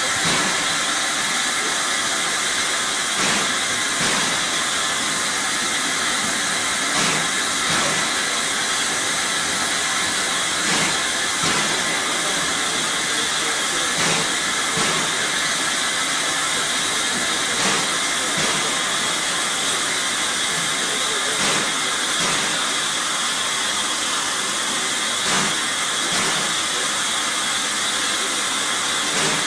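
Steam locomotive hissing steam steadily, with faint soft knocks recurring in pairs about every three and a half seconds.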